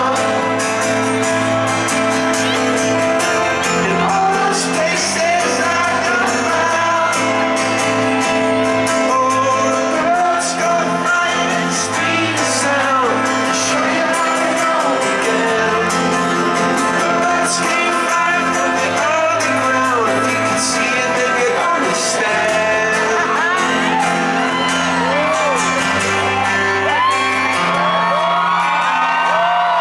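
Live band playing a pared-down arrangement of a pop-rock song on piano and acoustic guitars, with singing over it, amplified through a concert sound system. Crowd shouts and whoops can be heard over the music.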